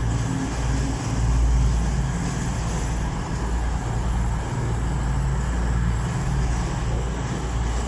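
East Midlands Railway Class 222 Meridian diesel multiple unit with its underfloor diesel engines running in a steady low drone as it rolls slowly into the platform and comes to a stand.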